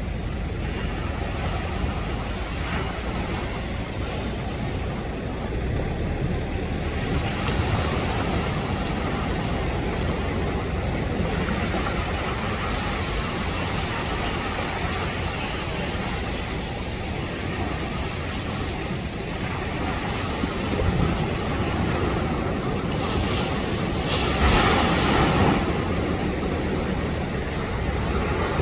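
Surf breaking and washing on a beach with wind buffeting the microphone: a continuous rushing roar with a heavy low rumble, and one louder rush near the end.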